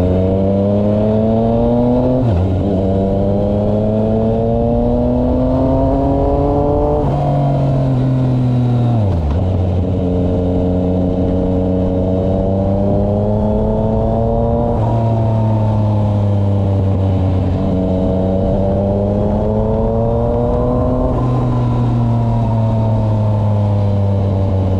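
Yamaha MT-09's three-cylinder engine being ridden up through the gears. The pitch climbs slowly for several seconds, then drops sharply at each upshift, with stretches where it falls away as the bike eases off, before climbing again.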